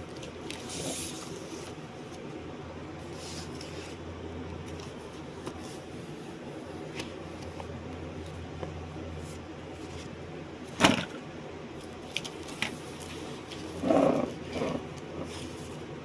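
Room tone with a steady low electrical hum, broken by one sharp click about eleven seconds in and a brief muffled rustle about three seconds later.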